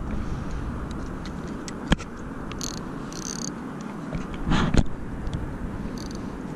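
Steady outdoor background of distant city traffic by open water. A single sharp click comes about two seconds in, and a short louder burst of handling noise just before the five-second mark, with brief high chirps around three seconds and near the end.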